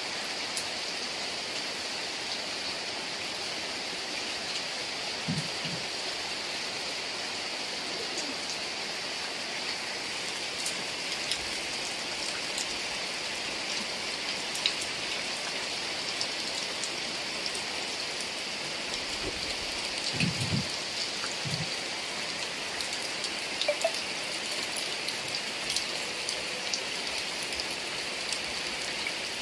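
Heavy rain falling steadily, with individual drops clicking sharply on nearby surfaces. Brief low sounds come about five seconds in and again around twenty seconds in.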